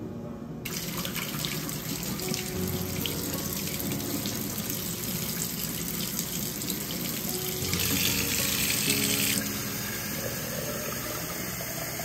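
Kitchen faucet running into a stainless steel sink while a paintbrush is rinsed under the stream: a steady splashing hiss that starts under a second in and grows louder for a couple of seconds near the end.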